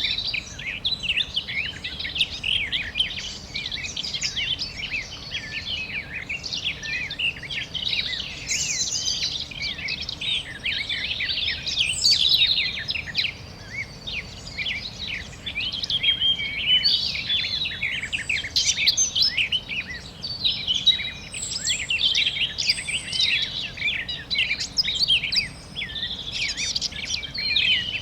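Many small birds chirping and calling at once in a dense, overlapping chorus of short high calls, with no single song standing out.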